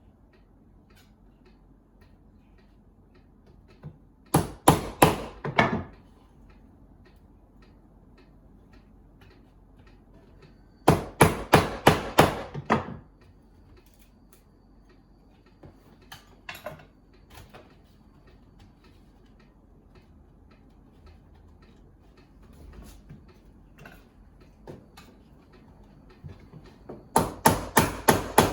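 Hammer blows struck in quick runs of about five to seven, three times over, with a few lighter knocks in between, as painted-in window parts are worked loose.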